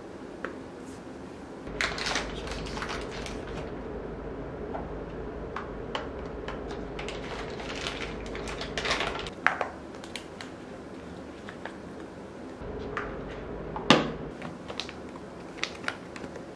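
Hands handling a bar of soap and a clear plastic soap case: crinkling of the soap's plastic wrapper and small plastic clicks and knocks, with one sharp knock about fourteen seconds in, the loudest.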